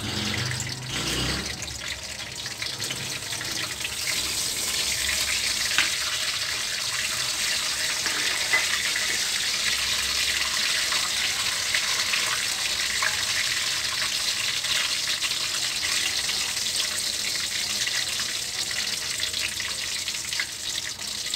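Curry leaves, fenugreek seeds and cumin seeds sizzling and crackling in hot oil in an iron karahi: a steady frying hiss with scattered pops, growing fuller about four seconds in.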